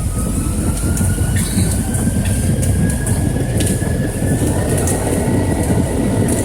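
Jet airliner engines, heard from inside the cabin, spooling up: a slowly rising whine over a steady heavy rumble, with a few light clicks.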